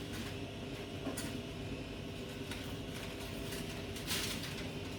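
Steady hum of a kitchen appliance fan, with a light click about a second in and a brief knock near the end.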